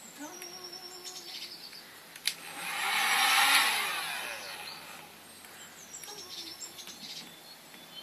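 Hand-held electric heat gun blowing steadily, with birds chirping. About two seconds in there is a sharp click, then a louder rushing sound swells and fades over about two seconds.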